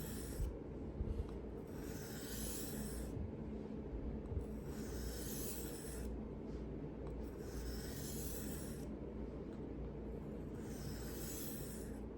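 Steel knife blade being drawn across a diamond sharpening stone by hand: a series of gritty scraping strokes, each about a second long, with short pauses between them.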